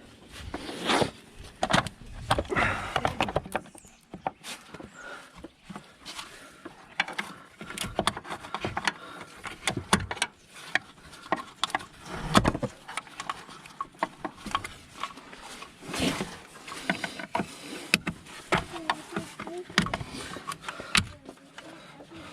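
Irregular clicks, knocks and rattles of hand tools and parts being worked loose during dismantling of a van's front end, the sharpest knocks about 1, 2, 10, 12.5 and 16 seconds in.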